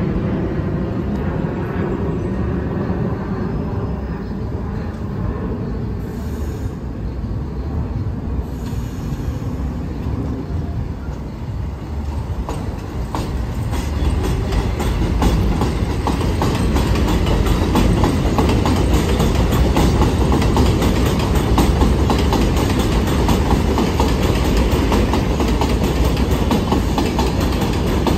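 A New York City subway 6 train of R62A cars running along elevated steel track, the wheels clattering over the rail joints in a dense, steady stream of clicks. It grows louder about halfway through.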